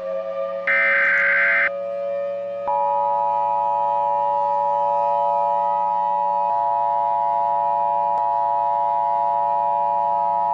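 Emergency Alert System tones. About a second in comes a one-second burst of SAME header data, a valid encoded alert header. From under three seconds in, the steady two-tone EAS attention signal takes over and holds to the end. A steady siren tone sounds underneath throughout.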